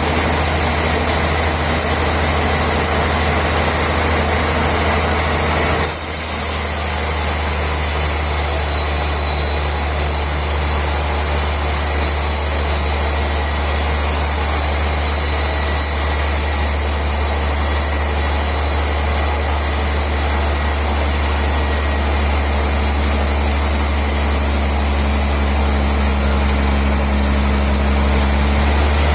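Industrial band sawmill running steadily with a loud low hum. The tone changes abruptly about six seconds in: the low and middle sound drops back and a high hiss comes up.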